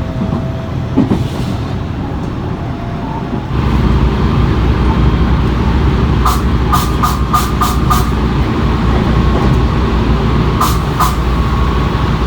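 Train air-compressor system on a JR West 225-series electric train, giving short, sharp bursts of escaping air: six in quick succession, then two more a few seconds later. Under them runs a steady low rumble that starts abruptly early on. The uploader takes the repeated blow-off as an abnormal noise and wonders whether it is a fault.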